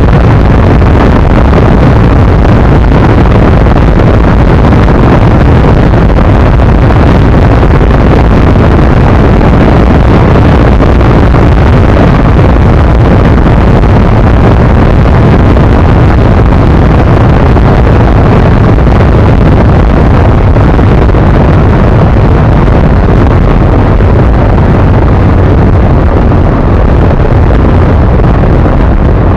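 ZiD 250 motorcycle's single-cylinder engine running steadily at speed, buried under heavy wind buffeting on the microphone; very loud throughout.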